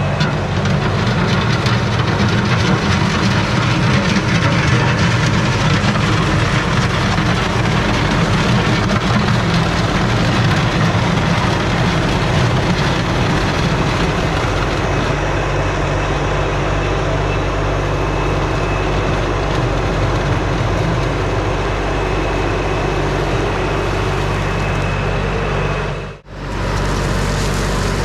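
LS MT357 compact tractor's diesel engine running steadily under work, with an even rushing noise over it. The engine note is strongest in the first half, and the sound drops out for a split second near the end.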